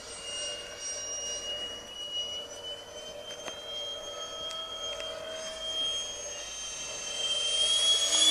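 Electric ducted-fan model jet (E-flite Habu) flying overhead: a steady high fan whine with a fainter lower tone beneath it, swelling louder near the end as the jet comes closer.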